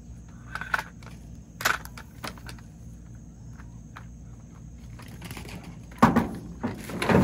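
A folding metal kayak-rack cradle being handled and set down on a pickup's tailgate. A few light clicks come in the first couple of seconds, then heavier clunks about six seconds in and again at the end as it is put down.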